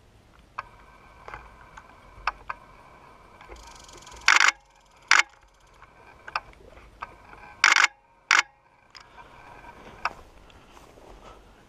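Camera shutter firing in four short bursts, two pairs about three seconds apart in the middle, with faint scattered ticks between them.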